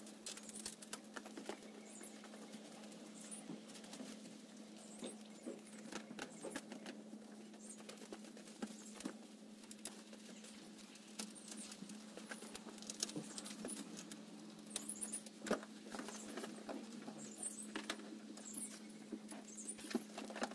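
Faint rustling of nylon umbrella fabric and scattered small clicks of fasteners as a large umbrella is stretched and fastened over a small open roadster as a makeshift soft top.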